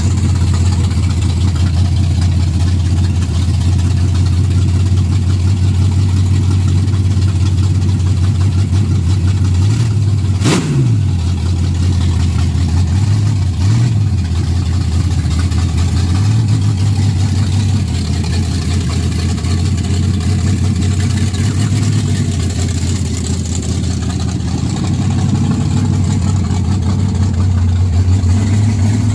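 V8 engine in a Datsun 240Z idling steadily, with a few light throttle blips. The revs rise near the end as the car pulls away.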